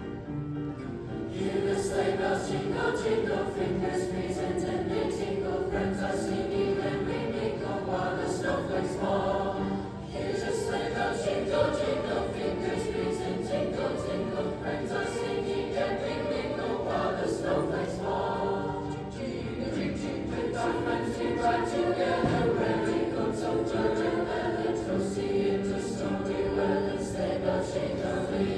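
Eighth-grade youth choir singing an arrangement of a Russian folk tune, entering and growing louder about a second and a half in.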